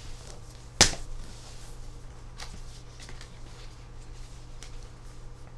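Photocards and album inserts handled and sorted by hand: one sharp snap about a second in, then soft rustling and a few light clicks of cards.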